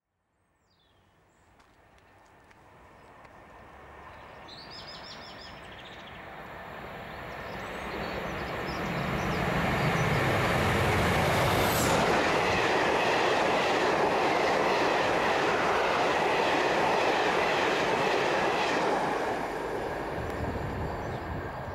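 Diesel locomotive hauling passenger coaches approaching and passing through a station: the train grows from faint to loud over about ten seconds, its engine heard as it draws level, then the coaches run past loudly for several seconds before the sound drops away near the end.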